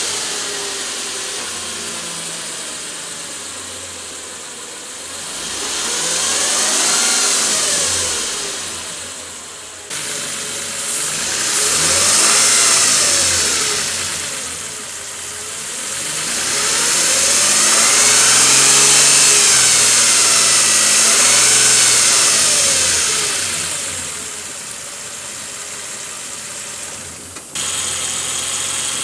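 2007 Nissan Frontier engine being revved up and down several times, with a whine that rises and falls in pitch with the revs. The owner takes the whine for a common Frontier engine fault covered by a Nissan technical bulletin.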